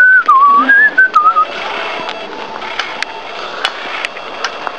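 A man whistling a short tune of a few notes that wander up and down, for about the first second and a half. After that, a steady rolling noise with occasional sharp clicks.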